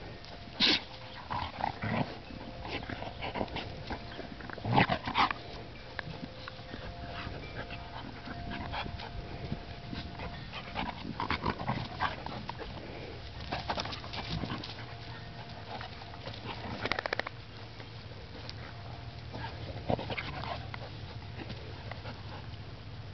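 A Bouvier des Flandres and a Catahoula Leopard Dog play-wrestling, with short, scattered dog vocalizations and scuffling; the loudest bursts come about a second in and around five seconds.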